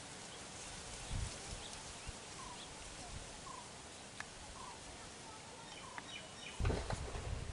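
Quiet outdoor ambience with a bird repeating a short call about once a second. A brief low rumble comes about a second in, and a louder stretch of low knocking and rustling comes near the end.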